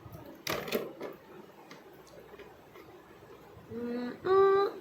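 A short handling click about half a second in, then a person humming two short held notes near the end, the second higher and louder.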